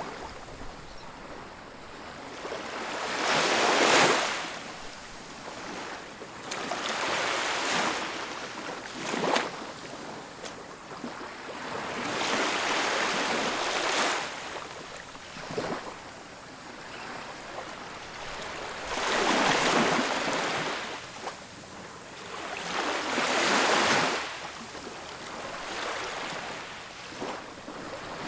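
Ocean waves breaking on a beach, a hiss of surf that swells and recedes every few seconds, with several larger breakers standing out.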